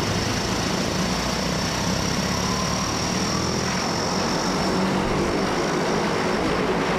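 Pilatus PC-6 Porter's turboprop engine running steadily on the ground with the propeller turning: an even propeller and engine drone under a steady high turbine whine.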